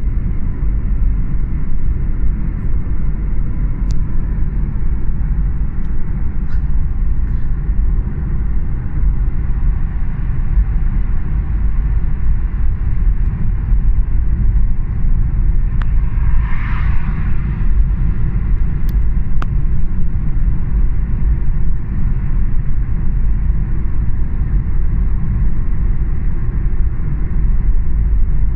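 Dubai Metro Red Line train running, heard from inside the car as a loud, steady low rumble, with a brief hiss about two-thirds of the way through.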